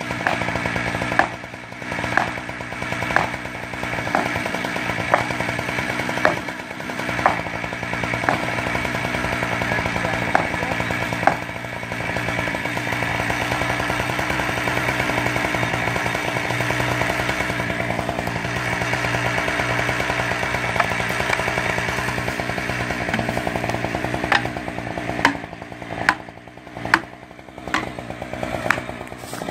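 Gas chainsaw running at cutting speed as it saws into the trunk of a big poplar. Sharp knocks come about once a second for the first dozen seconds and again near the end, where the saw eases back to a lower run between them.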